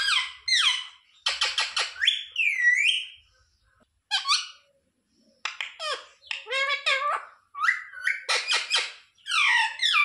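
Ring-necked parakeet calling in bursts of short, raspy, chattering notes that slide in pitch, with a longer whistled glide between about two and three seconds in and brief pauses around four and five seconds in.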